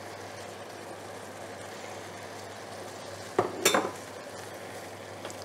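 Spinach and diced onion sizzling in oil in a stainless steel frying pan as they are stirred, with two sharp clinks of the utensil against the pan about three and a half seconds in.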